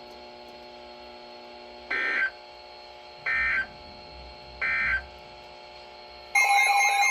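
Three short bursts of EAS digital data tones, the SAME end-of-message code that closes an emergency alert, each about a third of a second long and about 1.3 seconds apart, over a faint steady hum. Near the end a loud warbling alarm tone starts.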